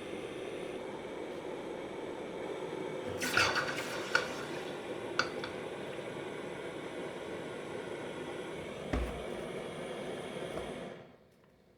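Gas torch flame burning steadily, heating silver-steel blanks red hot for hardening, with a few light metallic clinks. The flame stops fairly suddenly near the end.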